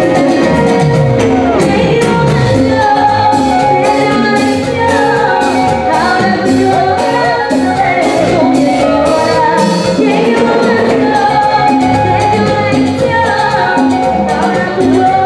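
Live salsa band playing: singers over a steady percussion beat from timbales and congas, with keyboard.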